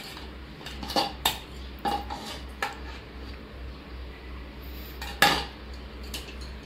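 A utensil clinking and scraping against a pressure cooker as cooked biryani rice is scooped out: several sharp clinks, the loudest about five seconds in.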